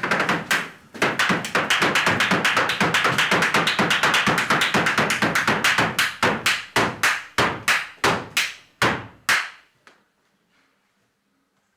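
Feet stamping hard on a wooden stage floor in dance footwork: a fast, even run of stamps, several a second, that slows to single stamps spaced further apart and stops about nine seconds in.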